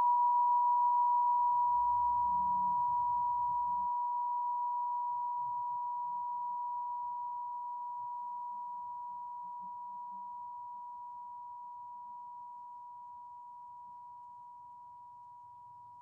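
A struck sound-healing instrument ringing out in one steady, pure high tone that slowly fades away.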